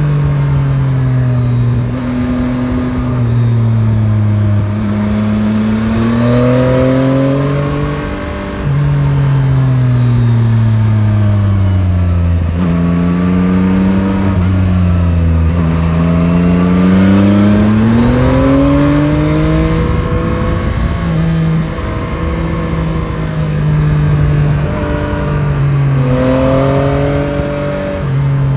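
Yamaha Tracer 9 GT's 890 cc CP3 inline-three engine on a ride, its pitch climbing, stepping through gear changes and dropping again several times as the bike accelerates and slows, with wind and road noise underneath.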